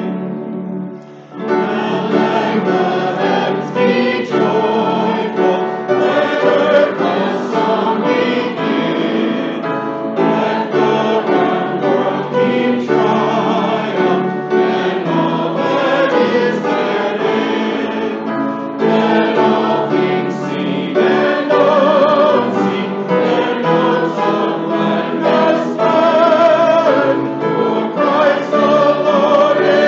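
A church congregation singing a hymn together. There is a brief pause about a second in, and then the singing carries on.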